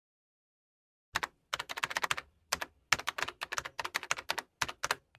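Typing on a computer keyboard: a quick run of keystroke clicks that starts about a second in, with a few short pauses.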